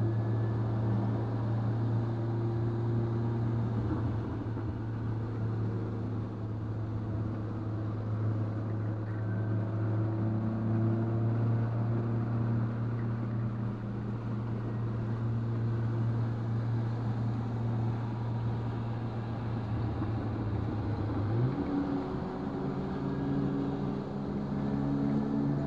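Turbocharged 2.0-litre four-cylinder of a Stage 2-tuned 2019 VW Golf R running at steady revs for about twenty seconds. A little over twenty seconds in, the pitch steps up, then rises slowly as the car accelerates.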